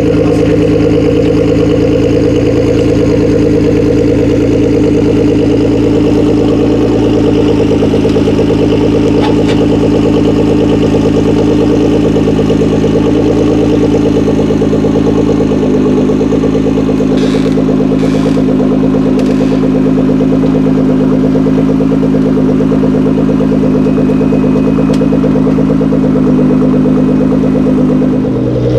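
Nissan GT-R R35's twin-turbo 3.8-litre V6 idling steadily through its aftermarket quad-pipe exhaust, the engine still cold with the exhaust steaming.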